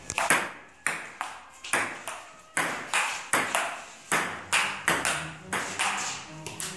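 Table tennis ball striking paddles and the table in a rally: a steady run of sharp, ringing clicks about two to three times a second.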